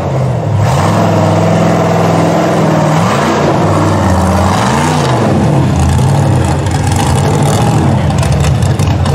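Rock bouncer buggy's engine running hard on a steep rocky climb, with quick rev blips that rise and fall about three and five seconds in.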